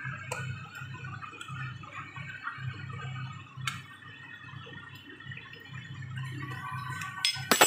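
Pot of soup at a rolling boil, bubbling steadily over a low hum, with a couple of light clinks of a metal spoon against the pot and a louder rattle of metal and glass clinks near the end.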